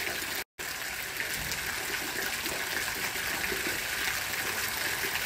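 Otowa Waterfall's thin streams of water falling steadily from the stone ledge into the pool below, a continuous splashing hiss. The sound drops out for an instant about half a second in.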